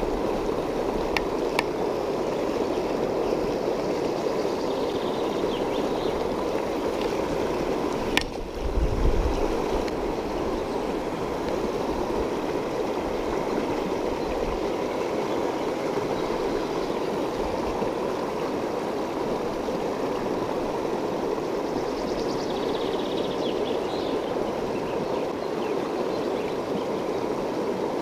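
Shallow river rapids rushing over stones, a steady, even roar of water. About eight seconds in there is a sharp click and a brief low thump.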